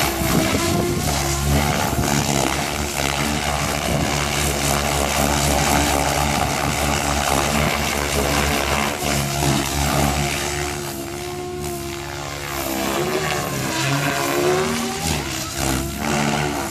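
Goblin 630 electric radio-controlled helicopter in flight, its Scorpion brushless motor and rotor blades giving a steady whir. The pitch rises and falls as it manoeuvres, swinging most widely about two thirds of the way through.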